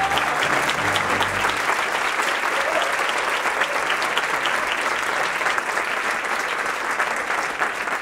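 Theatre audience applauding steadily: dense, even clapping.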